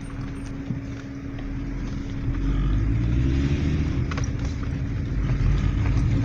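Passenger car driving on an unpaved mountain road, heard from inside: a steady low rumble of engine and tyres with a constant hum. The rumble grows louder about two seconds in, with scattered small clicks and knocks from the road surface.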